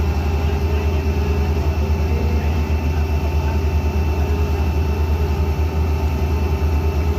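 Heavy diesel engine running steadily with a fast, even low throb and a steady whine above it.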